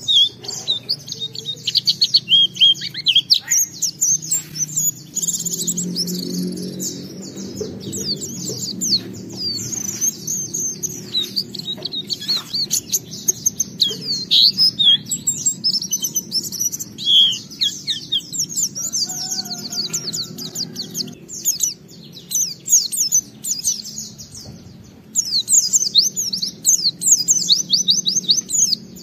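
White-eye (pleci) singing a fast, unbroken twittering song of rapid high chirps, trills and sweeping notes, in full song with many varied phrases. The song thins out for a few seconds about three-quarters of the way through. A steady low hum runs underneath.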